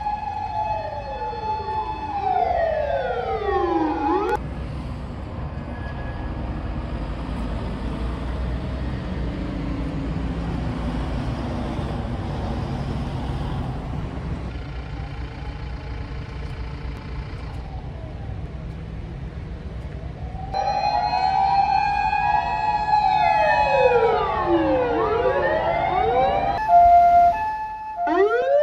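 Emergency vehicle sirens wailing, several at once, rising and falling in pitch. About four seconds in they drop away to a long stretch of steady low noise, then several sirens wail again together from about two-thirds of the way through.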